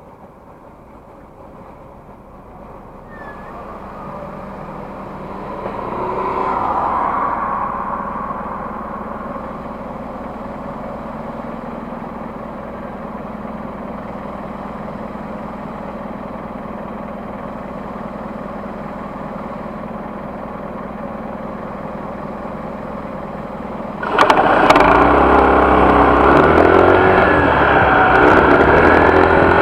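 Honda PCX scooter's single-cylinder engine running. It swells a few seconds in, holds steady, then becomes abruptly much louder near the end.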